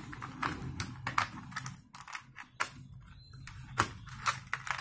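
A dozen or so light, irregular clicks and taps as fingers take pencils and instruments out of a metal geometry box, knocking them against the tin.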